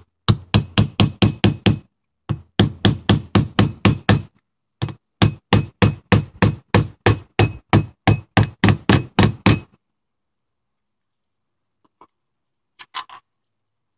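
Roofer's hatchet hammering a nail through a metal hold-down clip on a metal roof panel: three runs of quick, sharp blows at about four or five a second, each with a slight metallic ring, the last and longest run stopping about ten seconds in.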